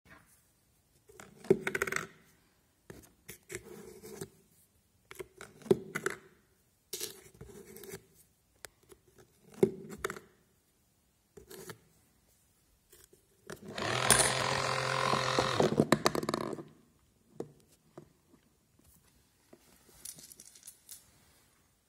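Coins dropping and knocking in a homemade cardboard coin-operated gum dispenser: several sharp clinks with short rattles. About two-thirds of the way through, the machine's small electric motor runs steadily for two to three seconds, followed by a few light clicks.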